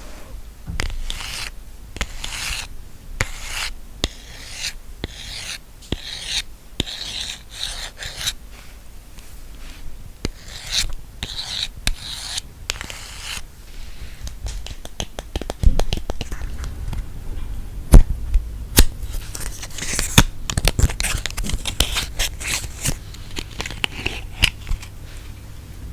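Scratching and rubbing strokes on an object, about one stroke a second. From about halfway they give way to faster scratching mixed with sharp taps and a few louder knocks.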